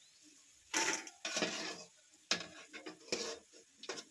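A metal spoon or ladle knocking and scraping against a frying pan about five times while bajjis are turned and lifted from the oil.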